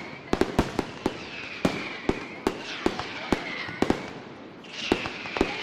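Aerial fireworks display: irregular sharp bangs of bursting shells, often several a second. A few high whistles fall in pitch between them.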